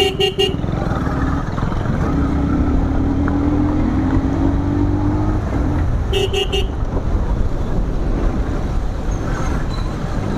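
Motorcycle ride through traffic: a vehicle horn gives three quick toots at the start and three more about six seconds in. Over a steady low rumble of engine and wind, the engine's pitch climbs slowly for a few seconds as the bike accelerates.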